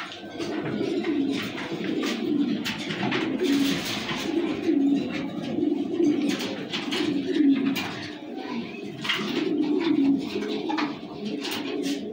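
Several caged beauty homer pigeons cooing, their low, repeated coos overlapping continuously, with short scratchy noises in between.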